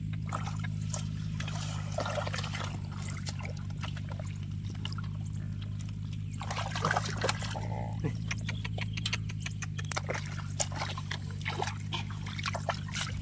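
Shallow muddy water trickling and splashing in a drained rice field as fish are caught by hand, with irregular small clicks and splashes, busier in the second half, over a steady low hum.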